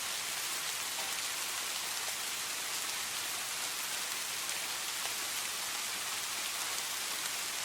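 Steady rain falling, an even hiss flecked with the light ticks of individual drops.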